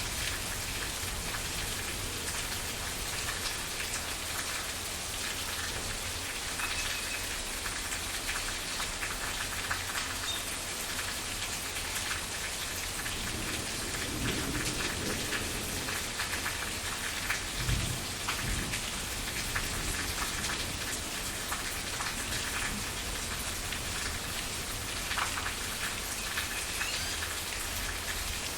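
Steady rain falling on a surface, with individual drops striking close by. A low rumble swells and fades about halfway through.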